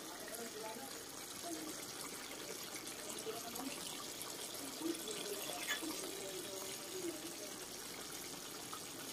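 Pot of stew simmering on the stove: a faint steady hiss with soft bubbling and a few small pops around the middle.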